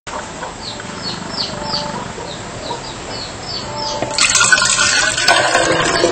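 Water poured from a jug into a plastic bottle, a loud splashing rush that starts about four seconds in. Before it, short high chirps repeat every fraction of a second.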